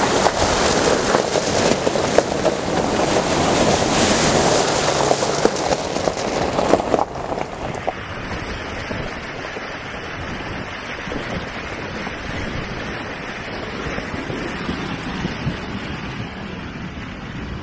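Jeep Wrangler Unlimited's tyres ploughing through a flooded trail crossing, a loud rush of splashing water. About seven seconds in it drops to a quieter steady rush of tyre spray and wind on a microphone mounted on the Jeep's side.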